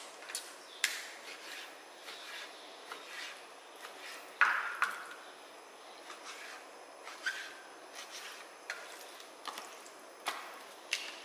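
Kitchen knife slicing raw chicken breast into strips, the blade knocking on a plastic cutting board in irregular sharp taps, the loudest two about four and a half seconds in.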